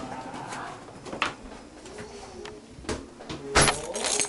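Front door and carried things knocking as someone comes in: a handful of sharp knocks and clunks, the loudest about three and a half seconds in.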